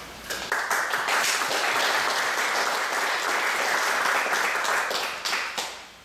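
Audience applauding. The clapping starts about half a second in and dies away near the end.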